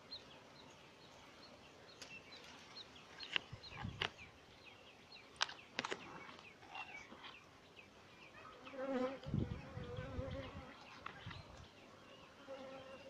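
A flying insect buzzing close by, loudest about nine to ten seconds in, with short high chirps and a few sharp clicks around it.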